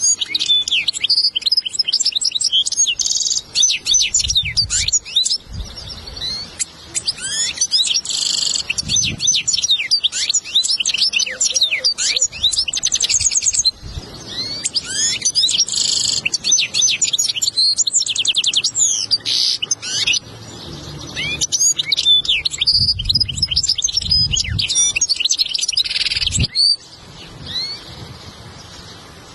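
European goldfinch singing a long, fast twittering song of sweet notes, trills and buzzy rattles, with a brief break about halfway through. It is a recorded tutor song played to teach young goldfinches to sing.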